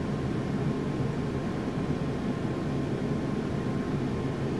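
Steady low hum and hiss of background room noise, with a faint steady whine above it and no distinct events.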